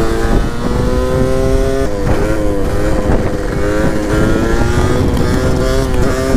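Yamaha DT 125's two-stroke single-cylinder engine held at high revs through a wheelie, its pitch dipping and rising a little as the throttle is worked, with wind noise on the microphone.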